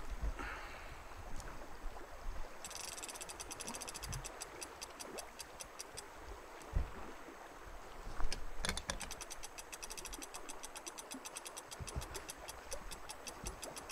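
Heavy big-game fishing reel's ratchet clicking rapidly as the line is wound in to take up slack. The clicking starts about three seconds in, breaks off briefly around eight seconds with a knock, then resumes faster and denser.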